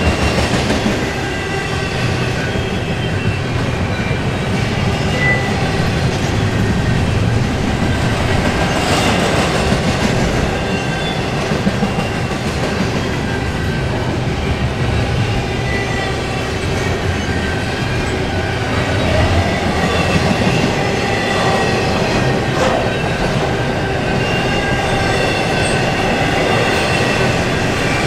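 Double-stack intermodal freight cars rolling past: a steady rumble of steel wheels on the rails, with a faint steady high whine from the wheels running through it.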